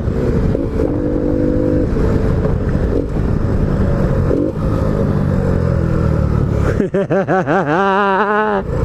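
Honda Biz 125's single-cylinder four-stroke engine running under way, fitted with a sports air filter, with wind rushing on the microphone. Its pitch climbs steadily in the middle as it accelerates, and near the end the wind drops away and the engine pitch wavers rapidly up and down.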